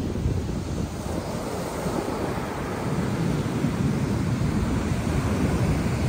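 Rough ocean surf breaking and washing up on a sandy beach, a steady roar, with wind buffeting the microphone.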